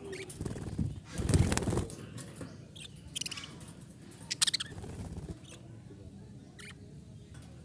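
Small pet parrots chirping in short, high calls, with a loud burst of wing flapping about a second in.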